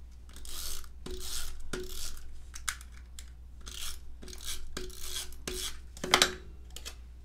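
Handheld adhesive tape runner drawn across the back of a small paper circle, laying down glue tape in a series of short strokes, about eight of them, with the loudest stroke about six seconds in.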